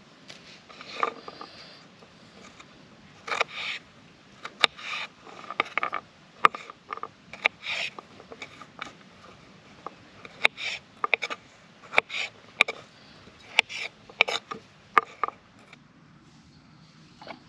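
A knife slicing a cucumber on a wooden chopping board: irregular sharp knocks of the blade hitting the board, mixed with short crunching cuts through the cucumber. The chopping stops about 15 seconds in.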